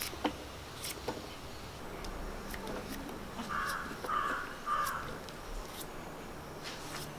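A crow cawing three times in quick succession about halfway through, over scattered sharp clicks of a knife cutting through raw papaya and chunks dropping into a clay pot.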